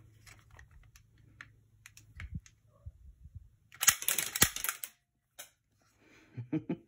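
Clicks and clacks of a 1972 Falcon Luger toy gun's plastic-and-metal trigger and toggle mechanism being worked by hand, with a short sharp clatter about four seconds in and a few more clicks near the end.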